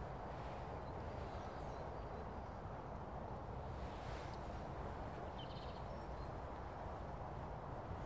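Outdoor rural ambience: a steady low noise with faint bird chirps, and a brief rustle about four seconds in.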